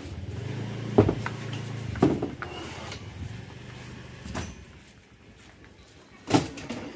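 Hard knocks and thumps of speaker boxes and equipment cases being handled and stacked on a truck bed, about four in all, the loudest about a second in and near the end. A low engine hum underneath fades out about two seconds in.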